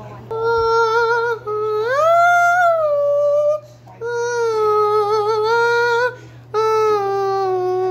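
A child's voice humming four long held notes with a wavering pitch, the second sliding upward partway through.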